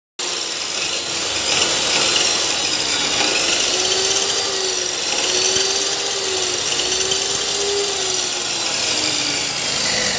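Chop saw's electric motor and abrasive cut-off wheel running free at speed, a steady loud whir with a faint wavering hum beneath it. The saw is being test-run after a current-leakage repair, to check by touch that its body no longer gives a shock.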